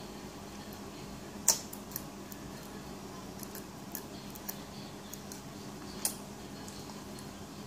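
A small metal fork clicking and tapping against a ceramic bowl as a toddler eats porridge: two sharp clicks, about one and a half seconds in and about six seconds in, with fainter ticks between, over a faint steady hum.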